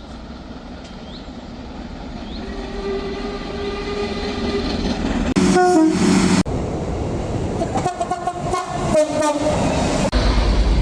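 A train approaching and growing louder, sounding a faint horn note early on, then one loud blast that steps between two pitches about five and a half seconds in, followed by several shorter horn blasts around eight to nine seconds in. Near the end a heavy low rumble sets in as the train draws close.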